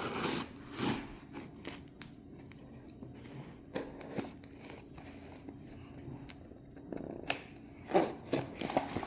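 Packaging being opened by hand: rustling, tearing and scraping with scattered small clicks, louder near the start and again near the end.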